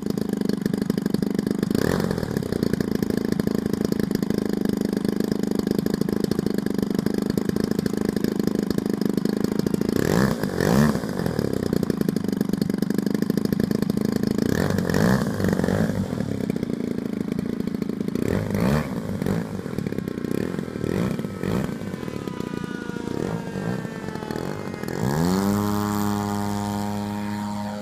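The Big Hots RC plane's 55cc gas engine runs steadily at a low throttle setting, with several short throttle blips. Near the end it is opened up for the takeoff run, its pitch climbing steeply and then holding high.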